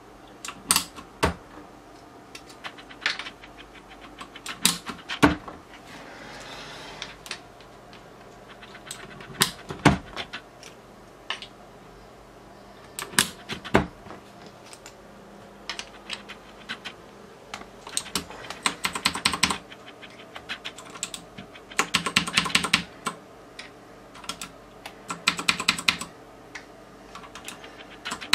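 QPAD MK-80 mechanical keyboard with Cherry MX Blue switches being handled as the WASD keycaps are swapped. Scattered single sharp clicks and snaps come through the first half, then several bursts of rapid clicking in the second half.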